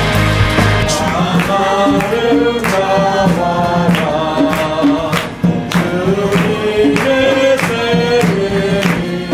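A small group of men and women singing a hymn together over a steady beat. About a second in, other music gives way to the singing.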